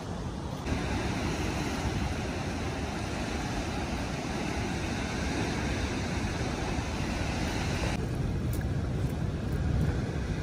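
Wind buffeting the microphone as a steady low rumble, with the wash of surf on the rocky shore; it grows louder about a second in.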